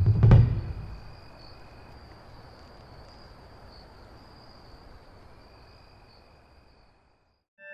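A last low drum hit decays, leaving a faint steady hiss with a thin, high, cricket-like chirring at the close of an electronic track. It fades out to silence about seven seconds in.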